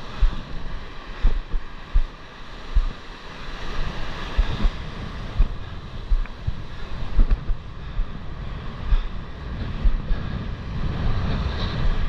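Wind buffeting the microphone in repeated low thumps over the steady wash of breaking surf and whitewater.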